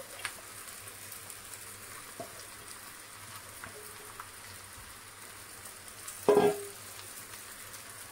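Noodles and vegetables frying in an oiled kadhai over a high flame: a steady soft sizzle with a few light taps, and one louder brief sound about six seconds in.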